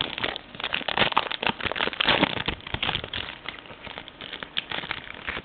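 Plastic wrapper of a trading card pack crinkling and crackling as it is torn open and handled, in many quick sharp crackles that thin out toward the end.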